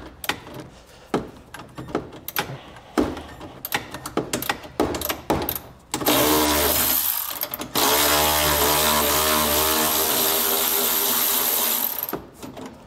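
Cordless electric ratchet spinning a 13 mm socket to back out a bolt from a bumper brace: scattered clicks and knocks as the tool is fitted, then the motor runs with a steady whine about six seconds in, pauses briefly, and runs again for about four more seconds.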